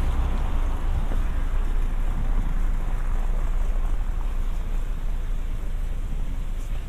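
Steady street noise: a continuous low rumble with a hiss above it, with no single event standing out.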